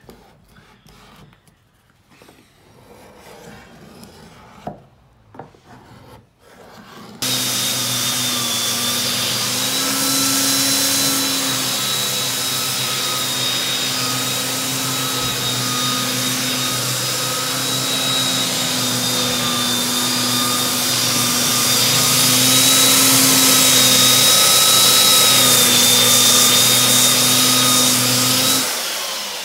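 Faint scraping and light knocks, then about seven seconds in an electric belt sander starts and runs steadily with a motor whine over a coarse grinding hiss as it sands the old finish off hardwood gate slats. It winds down just before the end.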